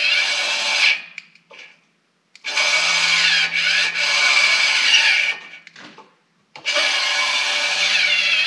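Electric exhaust bypass valve's actuator motor whirring as it drives the butterfly flap open and shut. It runs three times: once stopping about a second in, again from about two and a half to five seconds, and again from about six and a half seconds on. The valve is working correctly.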